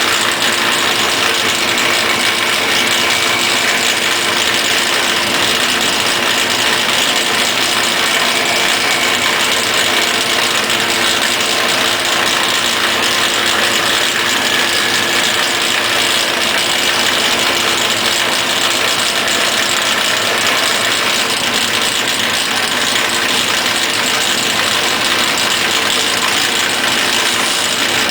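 Lathe spinning a wood baseball bat while its barrel is boned, a steady mechanical whir and rattle over a constant motor hum. The boning compresses the grain of the barrel.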